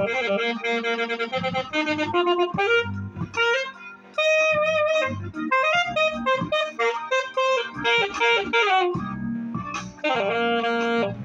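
Saxophone playing a lively melody of quick runs and held notes, with a short break about four seconds in.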